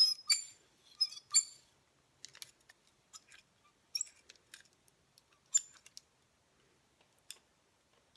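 Metal spring clamp of a curling iron clicking open and shut as hair is wound onto the barrel: sharp, ringing clicks, several close together in the first second and a half, then single ones every second or two.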